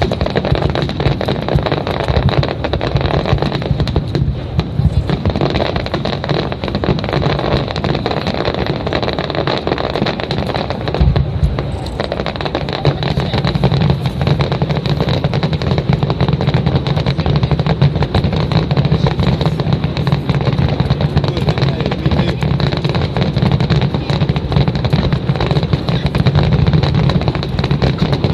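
Fireworks finale barrage: shells bursting in rapid succession, their bangs running together into a continuous rumble.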